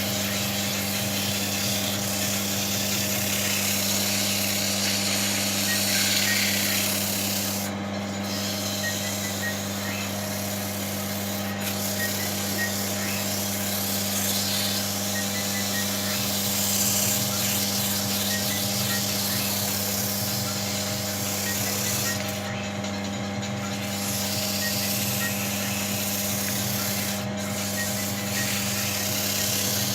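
180-grit sandpaper rubbing against a wooden ball spinning on a wood lathe: a steady sanding hiss over the lathe motor's steady hum, breaking off briefly a few times.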